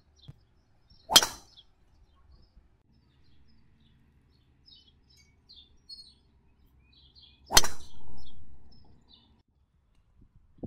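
Golf driver striking the ball off the tee twice, two sharp cracks about six seconds apart; a rushing noise follows the second strike for about a second and a half. Birds chirp faintly in between.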